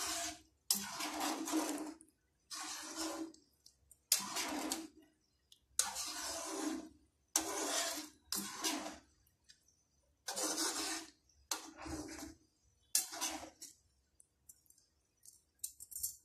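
Slotted spatula stirring chicken curry gravy in a nonstick wok: wet sloshing, scraping strokes at roughly one a second. The strokes stop about 14 seconds in, leaving a few faint ticks.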